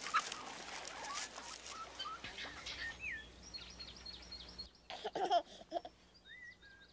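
Birds chirping over outdoor background noise, which drops away about four and a half seconds in. A baby then giggles briefly while small bird chirps go on.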